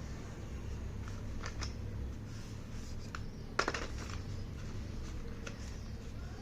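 Slate pencils and their packaging being handled: a few scattered light clicks and crackles, the loudest cluster about three and a half seconds in, over a low steady hum.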